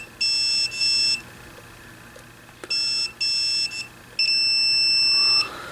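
Multimeter continuity tester beeping as its probes touch the pins of the 4-pin FET first RF amplifier. There are several short beeps, then one long beep of over a second. Each beep signals a short between the transistor's input and another pin, which the technician takes to mean the transistor is blown.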